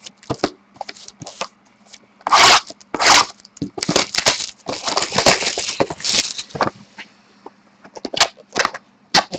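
Cellophane shrink-wrap being torn and crinkled off a sealed cardboard box of trading cards, in bursts of crackling rustles that are loudest from about two to seven seconds in. A few light clicks and scrapes of handling follow near the end.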